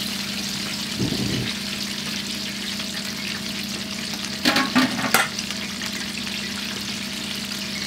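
Starch-coated yellowtail pieces deep-frying in a wok of hot oil: a steady bubbling sizzle. A steady low hum runs underneath, and a few short knocks come about halfway through.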